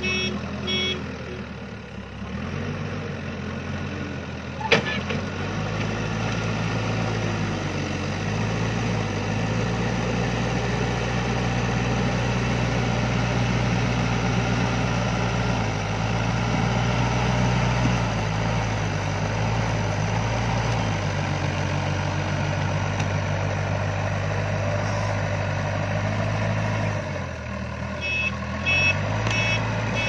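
Diesel engine of a Tata TH86 backhoe loader working under load while its front bucket pushes gravel. The revs climb about five seconds in and hold steady, then ease near the end. A reversing alarm beeps in the first second and again near the end, and there is one sharp metallic clank about five seconds in.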